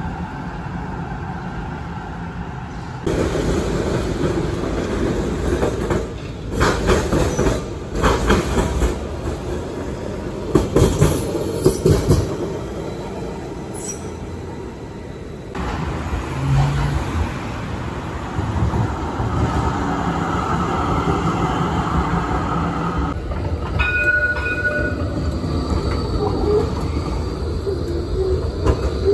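Melbourne trams passing one after another along street track, their wheels rumbling and clattering with sharp knocks over rail joints and points, over steady traffic noise. A brief high-pitched tone sounds about 24 seconds in.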